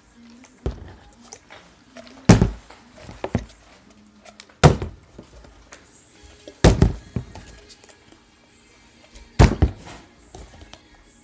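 A small plastic water bottle, partly filled with water, is flipped and lands on a tabletop, thumping about five times roughly every two seconds, with a few lighter knocks in between.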